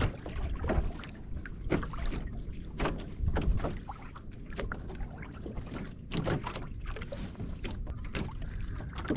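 Water lapping and slapping against the hull of a fishing kayak at sea, in short irregular splashes over a steady low rumble.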